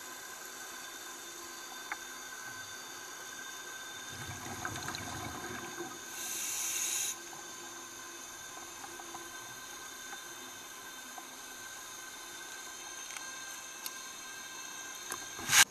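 Steady hiss with faint high steady whines, the self-noise of an underwater camera. A brief low rumble comes about four seconds in, a one-second rush of noise about six seconds in, and a sharp knock, the loudest sound, near the end.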